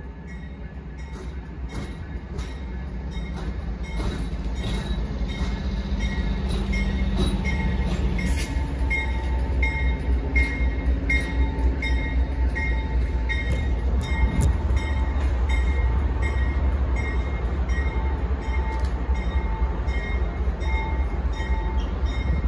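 Amtrak diesel-hauled passenger train passing: a low engine drone and rumble that grows louder over the first several seconds, then holds steady with a regular clicking about every half second as the cars roll by.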